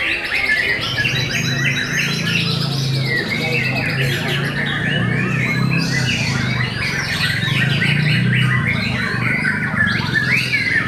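Several white-rumped shamas (murai batu) singing at once in competition, a dense, continuous tangle of fast whistles, trills and chattering calls, over a low background hum.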